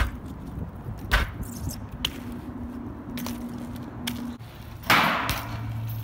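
BMX bike being ridden on concrete: sharp clacks and knocks of wheels and frame hitting the ground and ledges, the loudest about a second in, then a longer scraping rush about five seconds in, followed by a low steady hum.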